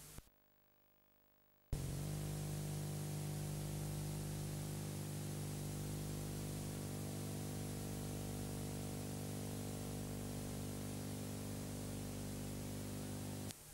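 A steady electrical buzz with hiss on an old videotape's sound track. It cuts in abruptly with a click about two seconds in, after a moment of near silence, holds unchanged, and cuts off suddenly near the end.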